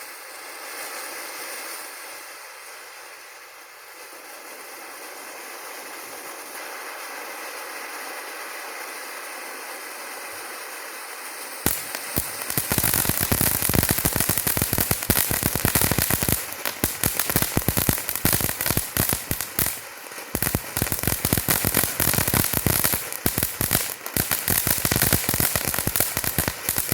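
Large California Rocket Fountain firework spraying sparks with a steady hiss. About twelve seconds in it breaks suddenly into dense, louder crackling that keeps going.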